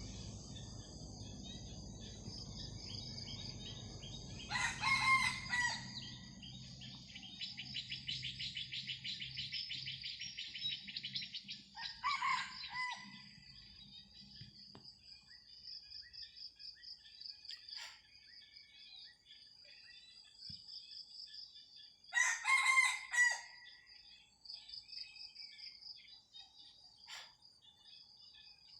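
Rooster crowing in challenge to a rival: two loud crows, about five seconds in and again near 22 seconds, with a fainter crow in between from a second rooster answering. Insects keep up a steady high trill throughout, with a fast pulsing buzz for a few seconds after the first crow.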